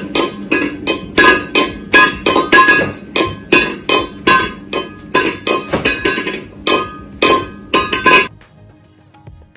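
Cat knocking a metal food bowl against a tiled floor with its paw, making repeated clanks, about three a second, each with a short metallic ring. The clanking stops suddenly about eight seconds in.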